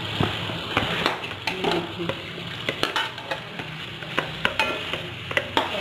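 Chicken pieces with yogurt and biryani-masala paste sizzling in hot fat in a cooking pot while being stirred, with irregular sharp clicks and knocks of the stirring utensil against the pot.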